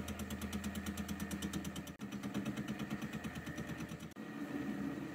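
Metal lathe taking a facing cut across the front face of a cast wheel. The machine runs steadily with a rapid, regular pulsing of about seven beats a second.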